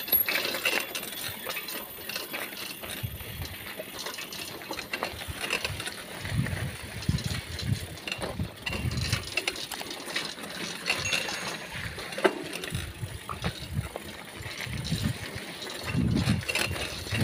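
Bicycle rattling and ticking over a rough dirt path while being ridden, with irregular low thumps from bumps and air on the handlebar-mounted microphone.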